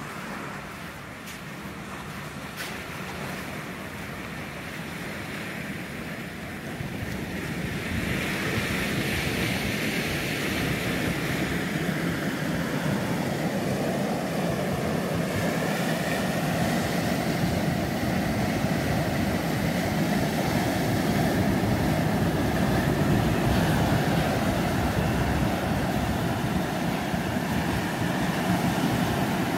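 Ocean surf breaking and washing up over a sand beach, a steady rushing roar that grows louder about seven seconds in.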